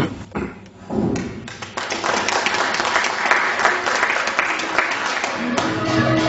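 Audience applauding. Near the end an amadinda, the Buganda log xylophone, starts up with quick interlocking struck wooden notes.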